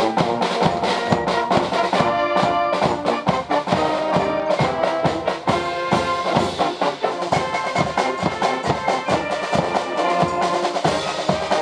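Cheer-squad brass band playing a march-like cheer song: trumpets, trombones, mellophones and sousaphone sounding together over marching snare and bass drums keeping a steady beat.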